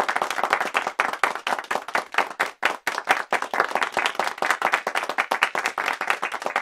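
Silicone spatula stirring and slapping sticky seitan dough of vital wheat gluten and stock around a stainless steel bowl: a fast, uneven run of wet slaps, several a second. The dough is being mixed without pause as the liquid activates the gluten.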